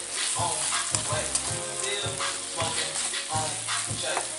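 Ground turkey sizzling as it fries in a pan, being stirred.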